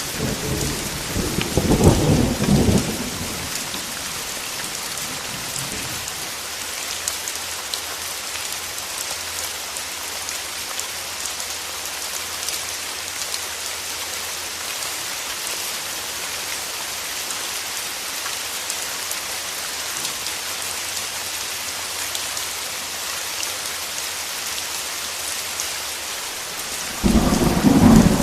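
Steady heavy rain hissing throughout, with a roll of thunder in the first few seconds and another one starting near the end.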